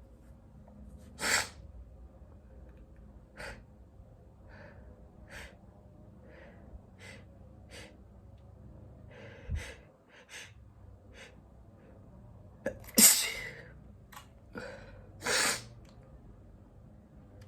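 A man sneezing several times. The loudest sneezes come about a second in, about thirteen seconds in and about fifteen seconds in, with shorter, quieter bursts of breath between them.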